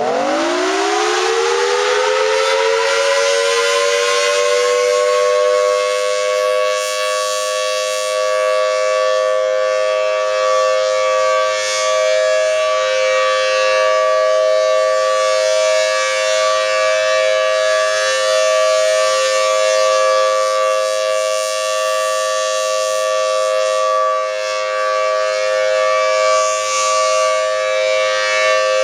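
Federal Signal Thunderbolt 1000T civil defense siren winding up during a test: its pitch climbs steeply in the first couple of seconds, then it holds a loud, steady, slightly discordant wail.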